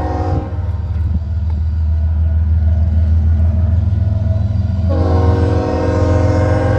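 Union Pacific diesel locomotive's air horn blowing as the auto rack train approaches: a blast that cuts off about half a second in, then the steady low rumble of the locomotive, and a second long blast starting about five seconds in.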